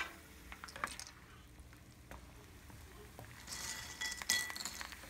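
Plastic slotted spatula clicking and clinking against a small nonstick saucepan over faintly sizzling oil. About three and a half seconds in, a fresh batch of raw chips goes into the hot oil and sizzles up for about a second.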